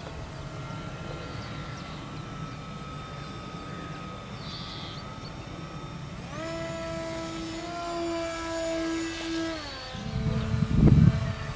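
Electric motor and propeller of a Stuntcat Depron RC model airplane whining in flight. The pitch steps up about six seconds in as the throttle opens, holds, then drops back near ten seconds. Gusts of wind hit the microphone near the end.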